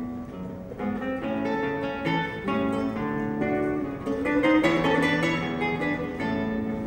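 Acoustic guitar playing a melody of plucked notes, one note or chord about every half second.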